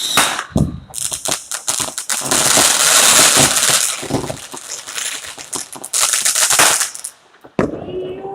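New Year's Eve fireworks and firecrackers going off: a rapid string of bangs with dense crackling, thickest from about two to four seconds in, and single loud bangs near the start and again near the end.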